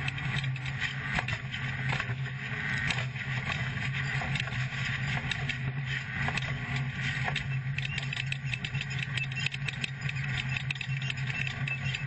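Off-road race truck's engine running hard at a steady speed, heard from inside the cab, with constant rattling and clicking of the truck over rough dirt.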